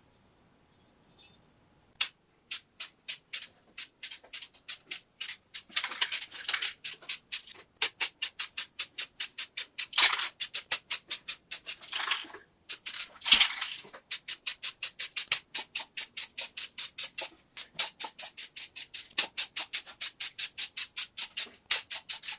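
Aerosol spray paint can being shaken, its mixing ball clacking about four or five times a second, with several short hisses of paint being sprayed.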